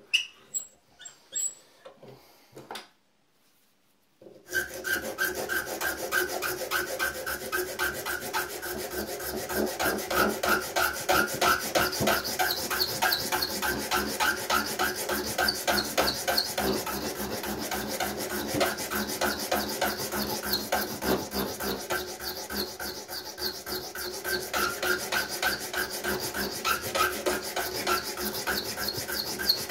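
A few light knocks as the workpiece is set in a small bench vise, then, from about four and a half seconds in, a hand file rasping in quick, steady back-and-forth strokes along the edge of a straight-razor scale blank.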